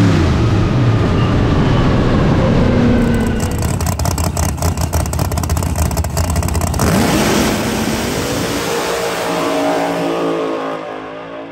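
Procharger-supercharged Chevy Nova drag car at full throttle on a pass. About two-thirds of the way in, the engine revs up hard as the car leaves the line, and its sound fades as it runs away down the track.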